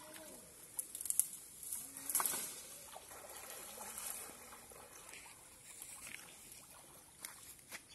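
Pond water splashing and trickling as people wade and swim through it, with the loudest splashes about one and two seconds in.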